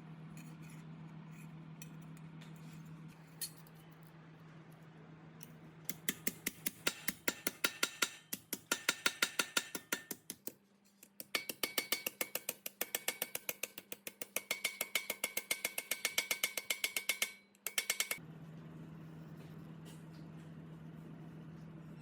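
Rapid, evenly spaced mechanical clicking, about five clicks a second, in two runs with a short break between them, over a steady low hum.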